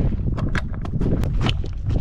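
Ratchet strap being cranked tight over a load of logs: a run of sharp, uneven clicks, over a steady low rumble.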